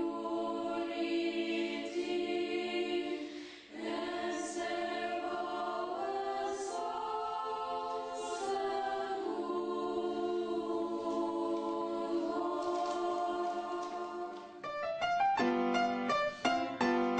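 Girls' choir singing slow, held chords, with a brief breath about four seconds in. Near the end it gives way to an upright piano playing quick, separate notes.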